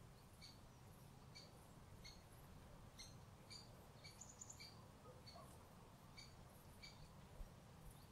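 Faint, short, high chirps from a small bird calling about twice a second, with a brief rapid trill about four seconds in, over a low background rumble.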